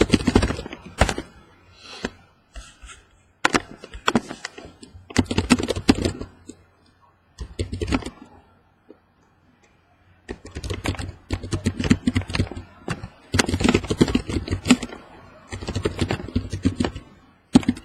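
Computer keyboard typing in several bursts of quick key clicks separated by short pauses, as team names are entered into a randomizer.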